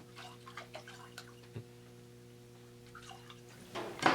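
Water dripping and splashing faintly as a piston is rinsed and lifted out of a container of water, with small scattered clicks and a louder knock near the end. A faint steady hum runs underneath.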